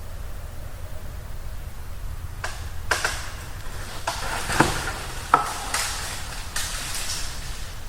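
An irregular run of sharp cracks and snaps, about eight over five seconds, starting a few seconds in, the loudest two a little past halfway, over a steady low rumble.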